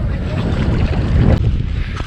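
Wind buffeting an action camera's microphone: a loud, continuous low rumble that swells a little past the middle.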